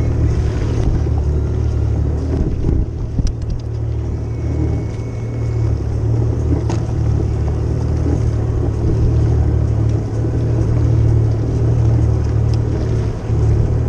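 Jet ski engine idling steadily, a low, even hum, with a few light clicks over it.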